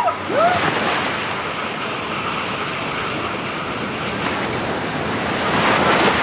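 Steady rush and hiss of water under a tube raft sliding through a water-slide flume and enclosed tube, growing louder near the end. A rider gives a couple of brief whoops right at the start.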